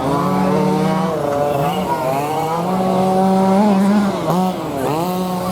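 RC car's motor running and revving, its pitch holding steady, then dropping and climbing back about two seconds in and again near the end.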